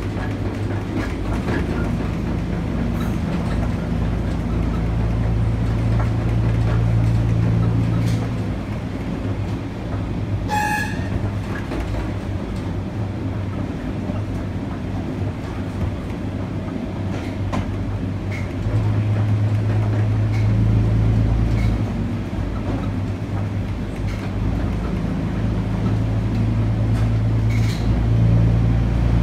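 Uerdinger railbus (class 798) running along a branch line, its diesel drone heard from the driver's cab, swelling louder for a couple of seconds around six seconds in, again a little past the middle and near the end. Occasional clicks of the wheels over rail joints, and a brief high tone about ten seconds in.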